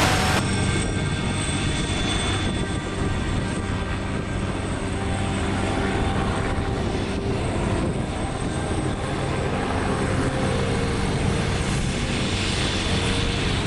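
Leonardo AW139 twin-turbine helicopter running on the ground with its main rotor turning, giving a steady turbine whine over the rotor and engine noise.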